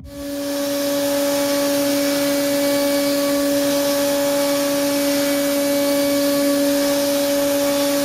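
CNC milling spindle running at about 17,000 rpm with a 4 mm ISCAR Chatter Free carbide end mill cutting C45 steel: a steady hum over an even hiss.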